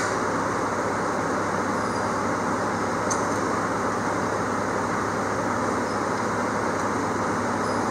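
Steady whooshing background noise with a low hum under it, like a running fan or motor, unchanging throughout, with a couple of faint light clicks.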